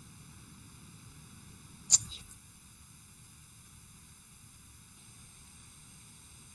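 Faint steady hiss and hum of a video-call audio line, with one short, sharp click about two seconds in.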